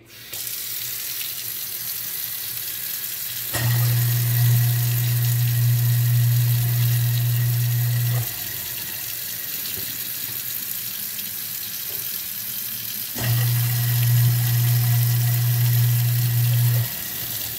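InSinkErator Evolution XP 3/4 hp garbage disposal switched on twice, each time for about four to five seconds, giving a low steady hum over the hiss of tap water running into the sink, with only water in the grinding chamber. Very quiet for a disposal.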